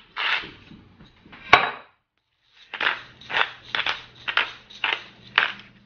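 Hand-twisted salt and pepper grinders grinding over a bowl: a few crunchy grinding strokes and a sharp click about one and a half seconds in, then after a short break a steady run of grinding strokes, about two a second.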